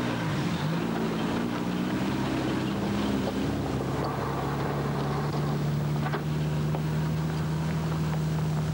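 Ford Transit pickup's engine as it pulls away along a gravel track: the note dips, rises as it accelerates, then holds steady.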